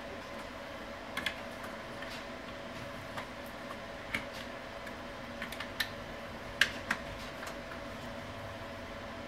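A handful of light, irregular clicks and taps, about ten over several seconds and loudest about two-thirds of the way in, over a steady electrical hum.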